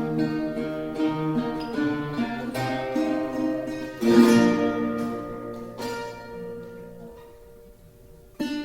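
Trio of classical guitars playing a plucked arrangement together. About four seconds in, a loud chord is struck and left ringing, fading away for several seconds before the guitars start playing again near the end.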